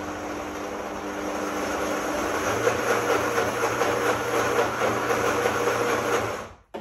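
Electric countertop blender running continuously, blending a thick green pesto; the motor gets a little louder about two and a half seconds in and cuts off abruptly near the end.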